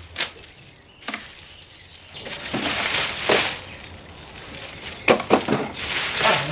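Clear plastic bag rustling and crinkling as it is pulled off an electric pressure washer, with a few sharp knocks about five seconds in as the machine is set down on the concrete.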